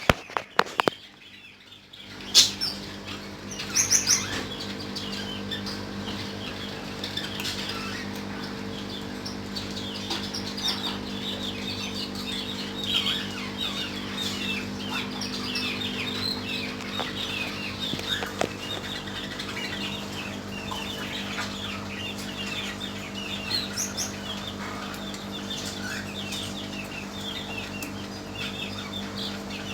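Many small birds chirping and twittering in quick, overlapping calls, with a couple of louder calls in the first few seconds, over a steady low hum.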